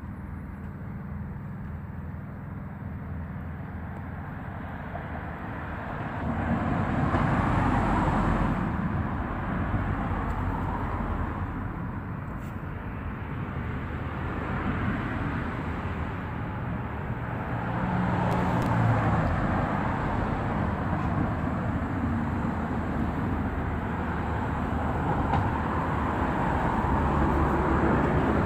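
Steady outdoor background rumble with no speech, swelling and fading a few times.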